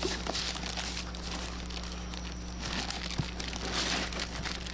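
Plastic packaging crinkling and rustling as a toy is unwrapped, with many small crackles, over a steady low electrical hum.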